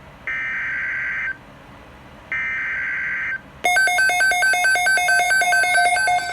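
Emergency Alert System header: two one-second bursts of buzzing digital data tones about a second apart, the coded alert header. About three and a half seconds in, a louder, rapidly pulsing alert attention tone begins, several beeps a second.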